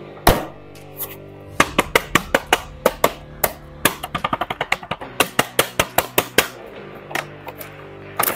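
Background music with steady held notes, under a fast, irregular run of sharp clicks and taps from plastic action figures and their packaging being handled, thickest in the middle of the stretch.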